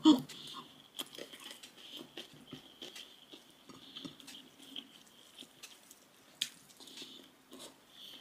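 A person chewing food close to the microphone: soft, irregular wet smacks and small clicks of the mouth, with one sharper click about six and a half seconds in.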